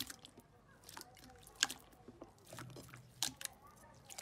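Hands pressing and kneading clear slime: wet squishes with irregular sharp crackling pops, the loudest about a second and a half in and again a little past three seconds.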